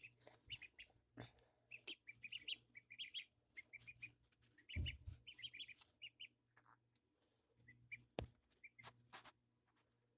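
Ducklings peeping in quick runs of short, high chirps, with a few soft scuffs and bumps between them.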